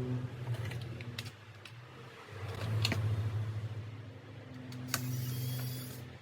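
A small electric motor runs in three bursts, each a steady low hum, with light clicks and taps between them.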